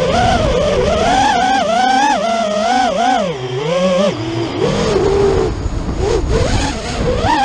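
A 5-inch FPV racing quadcopter's brushless motors whining, the pitch rising and falling quickly with throttle changes as it flies, over rushing wind noise on the onboard camera's microphone.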